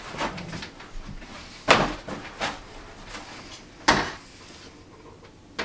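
A metal-framed solar panel being lifted, turned over and set down against cardboard packaging: a few short handling knocks, the two loudest about two seconds apart, with soft rustling between.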